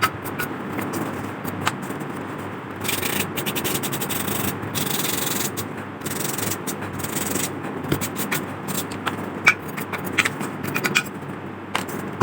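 Hand sanding of the lamp's metal parts with emery paper: continuous rubbing and rasping strokes, louder and brighter for a few seconds near the middle, with scattered small clicks of handling.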